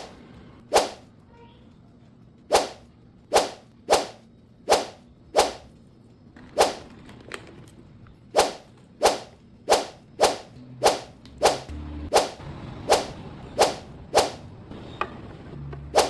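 A run of about eighteen quick whoosh sound effects, each a sharp swish that fades fast, coming every half second to a second.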